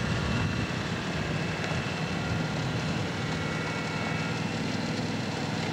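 John Deere garden tractor engine running steadily as the tractor drives, towing a Bambini ice resurfacer across the rink.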